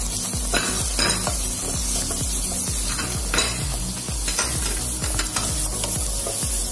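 Sliced mushrooms and garlic sizzling in hot oil in a non-stick wok, stirred with a wooden spatula that scrapes the pan in short strokes every second or so.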